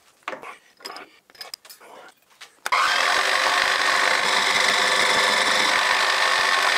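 A few light clicks and knocks as a hex collet block holding a small brass part is set in a milling vise, then, about three seconds in, the milling machine runs with a steady, even noise as its end mill cuts a hex flat on the brass.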